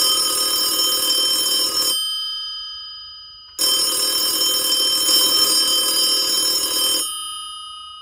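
Old-style telephone bell ringing twice. There is a ring of about two seconds, then a pause of about a second and a half while it rings out, then a second ring of about three and a half seconds that fades away near the end.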